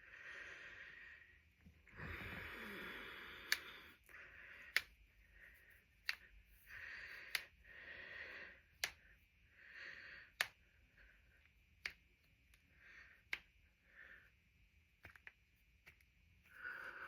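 Knuckle and finger joints being cracked by hand: about ten sharp, separate pops, roughly one every second and a half, with soft hissing between them.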